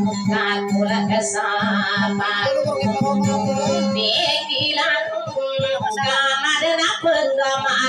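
Dayunday music: a high voice sings a wavering, ornamented melody over a plucked kudyapi, a Maguindanao boat lute, whose drone note sounds steadily underneath.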